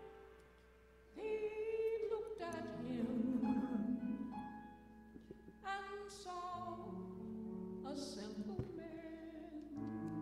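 A woman singing a slow gospel solo into a handheld microphone, her sung phrases coming in about a second in and again several times after, over long held instrumental chords.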